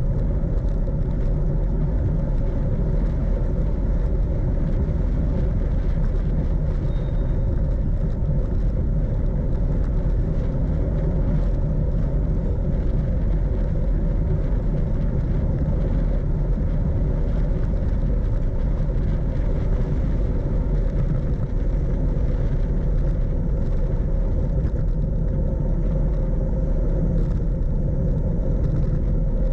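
Wind rushing over the microphone and tyre rumble from a Brompton folding bicycle descending a paved road at speed, steady, with a faint steady hum.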